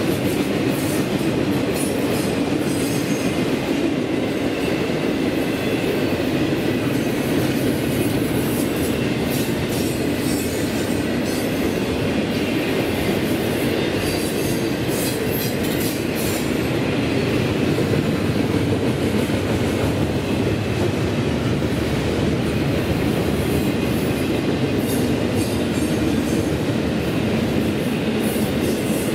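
Railroad cars rolling past steadily, a continuous rumble with scattered clicks from the wheels on the rails.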